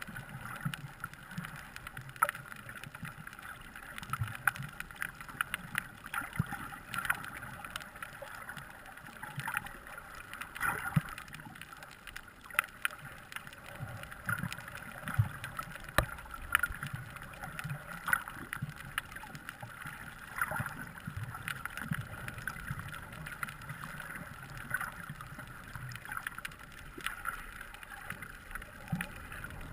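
Underwater sound heard through a camera's waterproof housing: a muffled, steady wash of moving water with low churning, broken by many irregular sharp clicks and crackles.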